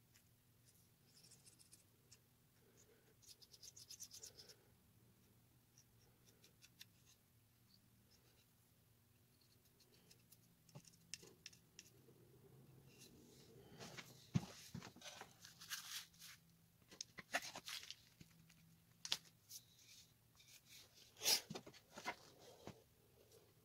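Faint scratching and rustling of small pieces of pallet wood being handled, with glue being spread on with a wooden toothpick. The sounds get busier in the second half, with a few sharper knocks of wood being set down.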